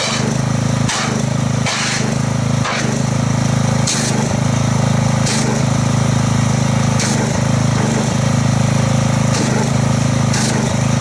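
Pressure washer running steadily as its wand jets water into a bucket of car-wash soap solution, churning it into thick foam. The hiss of the spray surges up in short bursts every second or two as the trigger is squeezed.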